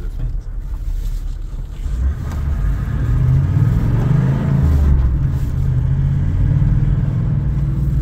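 Vehicle engine and road noise heard from inside the cab while driving. The engine works harder from about two seconds in, its note rising and then falling around the middle.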